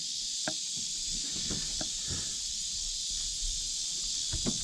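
Steady, high-pitched chorus of insects buzzing, with a few light, scattered knocks.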